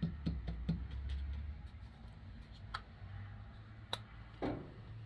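Light metal clicks and taps of a wrench being worked onto a stuck nut on a Coleman 220J lantern's base: a quick run of small ticks in the first second, then three single, sharper clicks spaced about a second apart.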